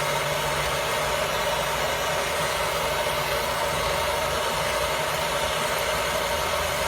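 Handheld gas torch running steadily, its flame held on lump charcoal to light it.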